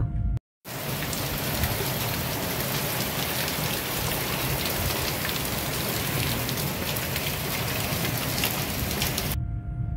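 Heavy thunderstorm rain pouring down as a steady, even hiss, which cuts off abruptly near the end.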